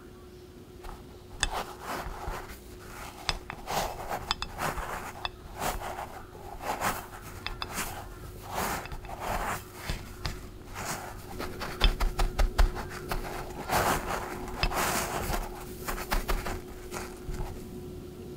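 Panko bread crumbs rustling and crunching in irregular bursts as a batter-coated corn dog on a wooden skewer is rolled and pressed into them in a glass dish, with scraping against the dish. A faint steady hum runs underneath.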